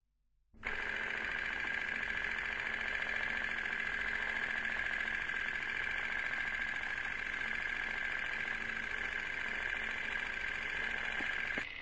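A steady mechanical whirr that starts about half a second in and runs unchanged, with a faint low hum under it, until it cuts off just before the end.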